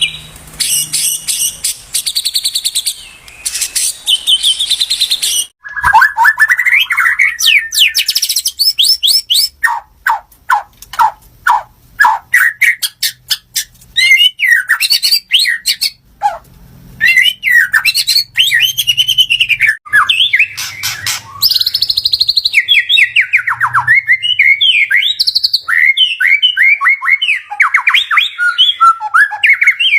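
White-rumped shama (murai batu) singing a long, varied song of rapid trills, fast runs of repeated notes and sweeping whistles, with only brief pauses between phrases.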